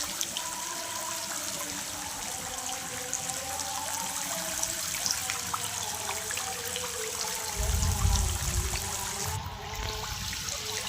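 Shallow water splashing and trickling as people wade and grope for fish by hand, with a brief low rumble about two-thirds of the way through.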